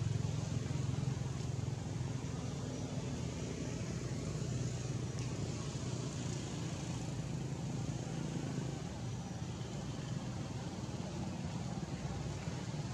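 Steady low background rumble with an even hiss over it.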